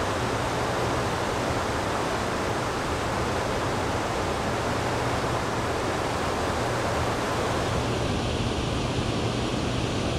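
Steady rushing of water below a dam, with a steady low hum underneath. The higher part of the rush thins a little near the end.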